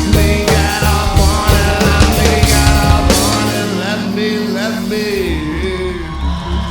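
Live rock band playing, with drums and bass driving a steady beat. About three seconds in the drums stop, leaving held bass notes and sliding, wavering tones.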